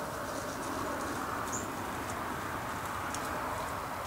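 A few faint, short, high chips from small birds, one about one and a half seconds in, over a steady low background rush.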